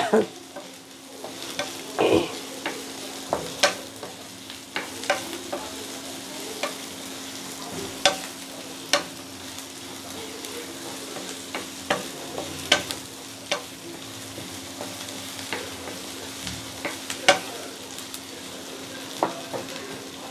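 Sliced onions frying in oil in a non-stick kadai with a soft sizzle, while a wooden spatula stirs them, knocking and scraping against the pan every second or so; the onions are being sautéed until transparent. A steady low hum runs underneath.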